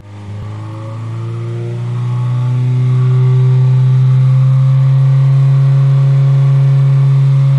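2017 Subaru WRX's turbocharged flat-four running through a modified aftermarket exhaust, revved up over the first few seconds and then held at a steady, loud engine speed for an exhaust noise test against California's 95 dB limit.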